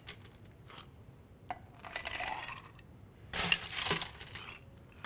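Ice cubes clinking and clattering into a pint glass of cocktail mix: a few light clicks, a rattle about two seconds in, and the loudest clatter about three and a half seconds in.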